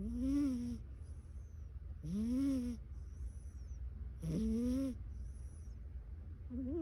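A cat snoring in deep sleep: a pitched snore that rises and falls on each breath, about every two seconds, with a softer breath between. There are three full snores, and a fourth begins near the end.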